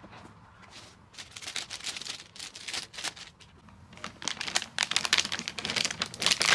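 Clear plastic vacuum storage bag crinkling and crackling as suction draws it down tight around the clothes inside. Irregular rustles, louder from about four seconds in.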